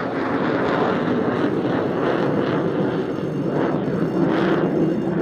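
Single-engine F-16 Fighting Falcon taking off in full afterburner: a loud, steady jet noise that swells again and again in its upper range as the fighter rolls and lifts off.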